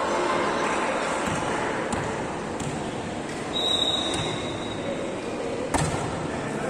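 Steady reverberant hubbub of a sports hall during a volleyball match. A thin high whistle-like tone lasts about a second midway, and a single sharp thump of the ball comes near the end.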